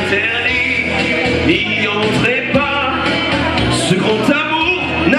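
Male vocalist singing live into a handheld microphone over loud backing music.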